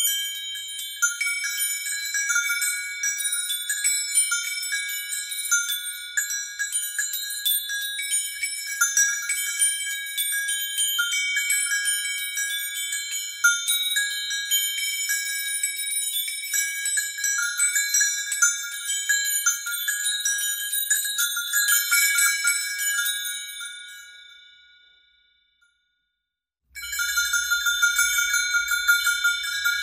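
Metal chimes shaken continuously, a dense jangle of many quick strikes over bright, lingering ringing tones. The jangle dies away to silence a little over 20 seconds in, then a second round of shaking starts suddenly near the end.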